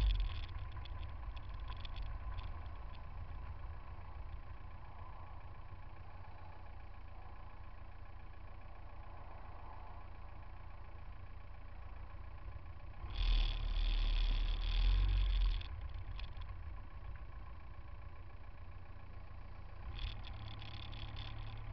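Low, steady rumble of car engines idling in a traffic jam, picked up by a microphone on a car's front bumper close to the road. About 13 seconds in, a louder rush of engine and road noise lasts under three seconds, and it comes again near the end as the traffic creeps forward.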